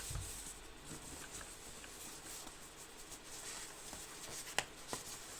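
Faint rustling and handling noise from a keyboard being lifted and turned over while it is unpacked, with one sharp click about four and a half seconds in and a fainter click just after.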